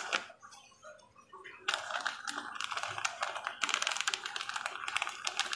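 Clear plastic bag crinkling and crackling as hands squeeze and shake powdered bait binder out of it, a dense rapid crackle that starts a couple of seconds in and grows busier.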